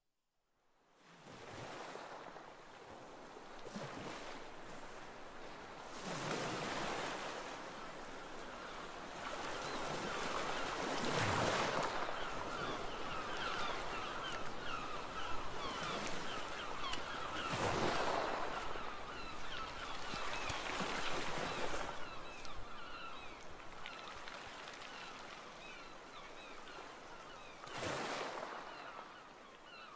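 Sea waves washing in, fading up about a second in, then swelling and falling back several times.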